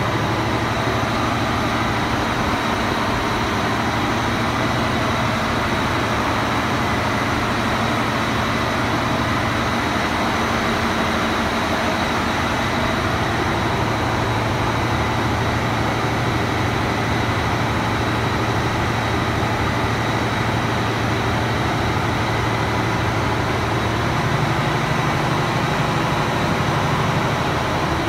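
Loud, steady drone of running heavy machinery around a large engine's camshaft, with a constant low hum and a thin steady high whine. The hum grows a little stronger about four seconds before the end.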